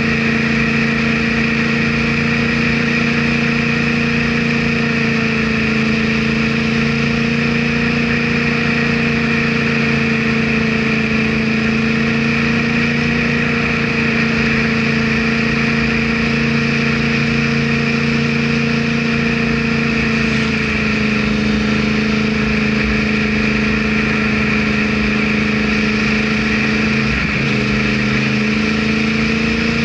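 Yamaha R1's inline-four engine running at a nearly constant speed while riding, its pitch dipping slightly about twenty seconds in.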